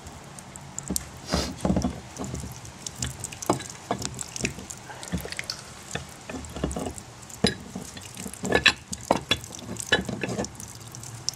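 Irregular clicks and knocks of a large plumber's wrench shifting and biting on the union nut of a water pressure regulator as the nut is worked loose, with water dripping from the drained pipe.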